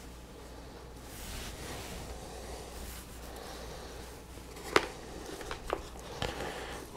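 Quiet handling noises from intercom speaker wires and a small connector being worked around a helmet's padded liner: faint rustling, with one sharp click a little under five seconds in and a few softer ticks after it.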